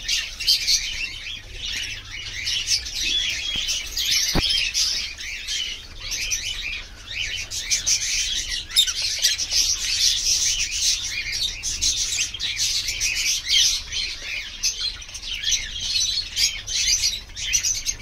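A flock of caged lovebirds chirping and chattering continuously, many high, rapid calls overlapping. A single sharp click about four seconds in.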